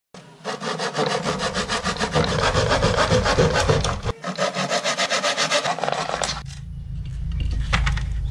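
Saw cutting through thin plywood in fast, even strokes, with a short break about four seconds in. The sawing stops about six and a half seconds in, leaving a few light knocks.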